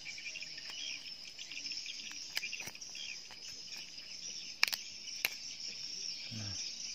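Steady high-pitched insect chirring, with a few sharp clicks of scissors snipping through giant freshwater prawn shell; the two loudest snips come about four and a half and five seconds in.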